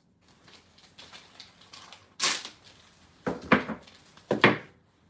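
A block of Japanese curry roux broken apart by hand: soft crinkling, then a sharp snap about two seconds in. Two louder knocks follow.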